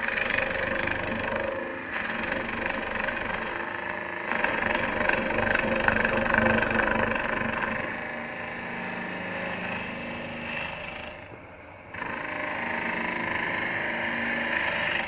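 Robert Sorby ring tool cutting end grain on a spinning wood lathe, a continuous scraping hiss of shavings as the bowl is hollowed, with the lathe running underneath. The cut stops for about a second near the end, then carries on.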